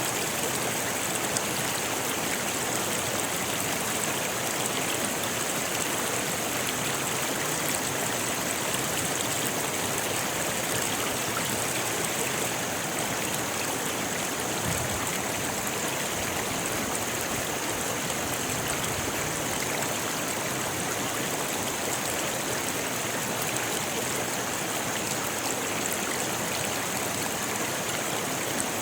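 Rocky river rushing and splashing over stones: a steady, even rush of water.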